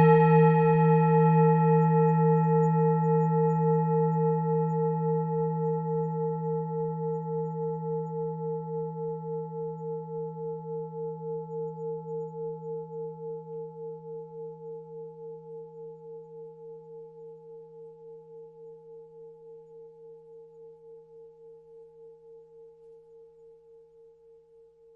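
Tibetan singing bowl ringing out after a strike, with a low hum and several higher overtones. The tone fades slowly away and carries a steady pulsing wobble.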